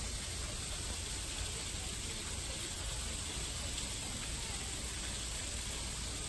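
Steady outdoor background noise: an even hiss over a low rumble, with no distinct events.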